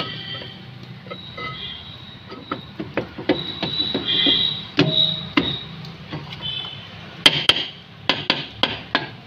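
Rear brake drum of a Maruti Suzuki Omni being slid over the brake shoes and onto the wheel studs. Scattered metal knocks and clanks come as it seats, with the sharpest few knocks about seven to eight and a half seconds in.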